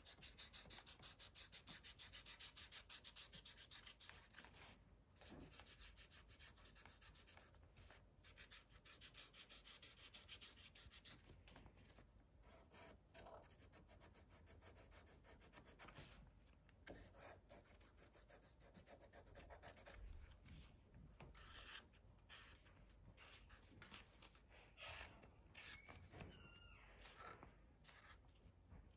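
Faint scratching of a Sharpie felt-tip marker drawn across folded paper in quick, repeated strokes, stopping briefly a few times.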